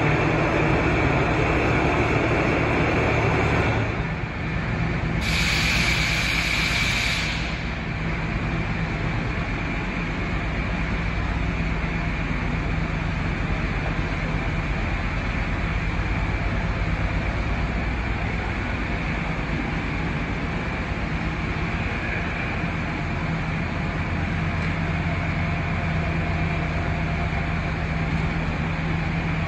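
Blanchard 72HD-120 rotary surface grinder running under power, with a steady low mechanical rumble and hum. It is louder for the first few seconds and eases a little about four seconds in. A brief hiss rises over it about five seconds in and lasts a couple of seconds.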